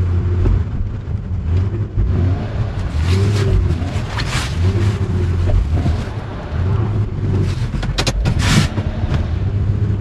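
Honda SUV's engine revving up and down over and over as its tyres spin in deep snow, the all-wheel drive slipping and the vehicle stuck. A short burst of noise about eight seconds in.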